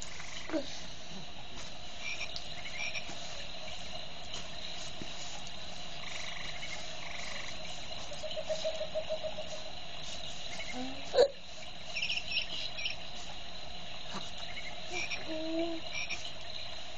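Recorded rainforest sounds from a baby play gym's electronic toy: steady frog and cricket calls, with a quick run of croaks about eight seconds in and short chirps scattered through. A single sharp knock about eleven seconds in is the loudest sound.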